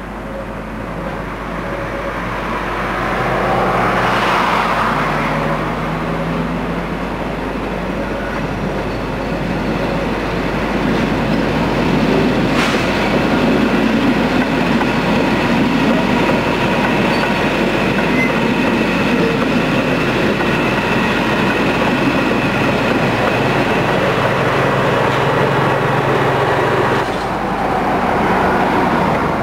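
Furka-Oberalp metre-gauge electric passenger train rolling slowly past: the wheel and rail noise builds over the first few seconds, then runs steadily with faint wheel squeal and a single sharp click about twelve seconds in. A low motor hum can be heard near the start and again near the end, when the baggage motor car goes by.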